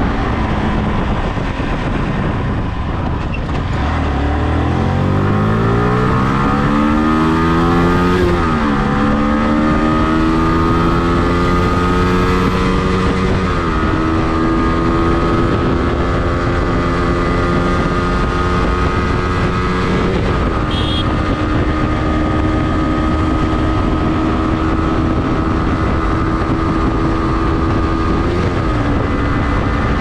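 Yamaha R15 V3's 155 cc single-cylinder engine accelerating hard from low revs. Its pitch climbs and then drops back at each of four upshifts, and it runs at nearly steady high revs through the later part.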